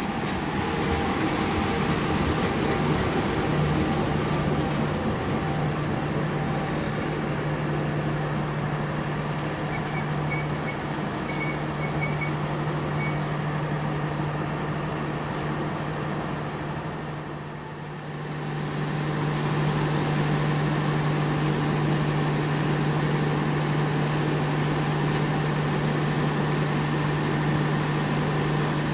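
CC 201 diesel-electric locomotive running with a steady low drone as it draws a passenger train along the platform, the coaches rolling past. Just past halfway the sound dips briefly, then the same steady drone returns.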